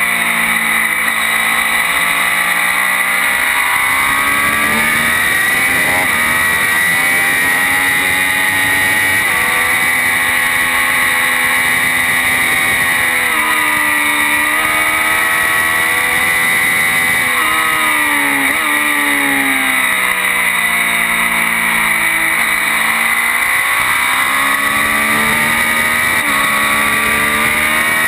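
Triumph Daytona 675's three-cylinder engine at racing speed, its pitch climbing as it accelerates through the gears and dropping sharply a few times as it shuts off and changes down for corners.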